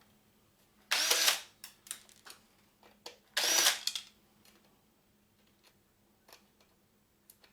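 A cordless drill/driver running in two short bursts of about half a second each, about a second in and again about three and a half seconds in, with small clicks and knocks of parts being handled between them.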